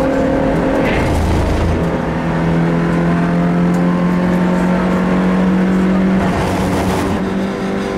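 Rally car engine heard from inside the cabin under hard driving, held at steady high revs for several seconds, with the pitch shifting about a second or two in and again around six seconds in.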